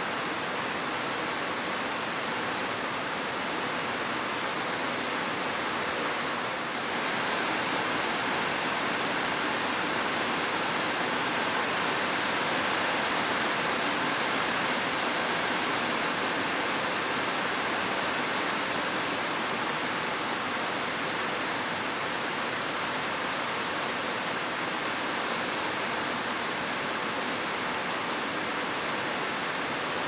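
A steady, even rushing hiss with no pauses, with a slight dip about seven seconds in.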